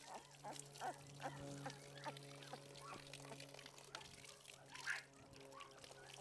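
Livestock guardian dog puppy whimpering and squeaking in quick short cries, several a second, while being rinsed under a hose. The loudest cry comes about five seconds in. Hose water trickles over its fur.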